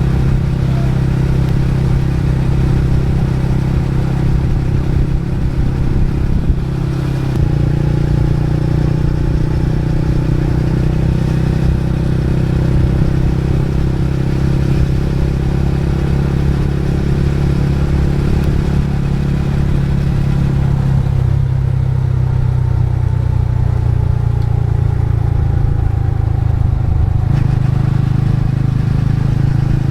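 Motorcycle engine running steadily under way, its note stepping up about seven seconds in and shifting again near the end as the throttle or gear changes.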